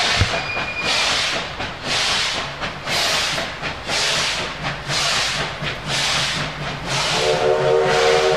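Steam locomotive chuffing slowly, a hiss of exhaust steam about once a second, with a steam whistle blowing near the end.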